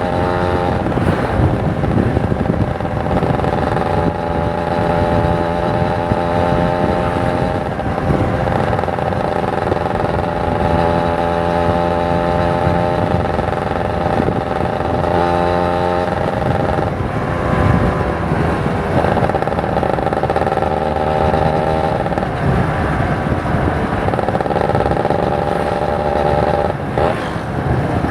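Kawasaki Ninja 150 RR's single-cylinder two-stroke engine running under way, heard from the rider's position. Its pitch shifts up and down several times as the throttle changes.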